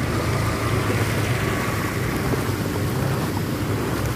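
A vehicle's engine humming steadily while water rushes and churns around it on a flooded road.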